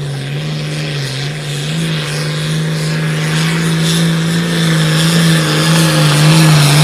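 Turbocharged diesel engine of a Limited Pro Stock pulling tractor running at high, near-steady revs under full load as it drags a weight-transfer sled, its pitch rising slightly about a second in and getting steadily louder as it comes closer.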